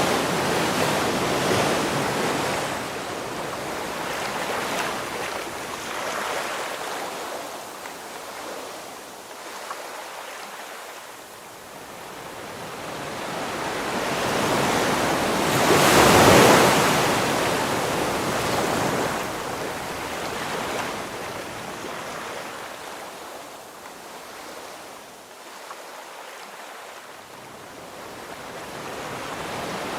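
Ocean waves breaking on a shore: a rushing surf that swells and ebbs, with one loudest wave crashing about halfway through and quieter lulls between the breakers.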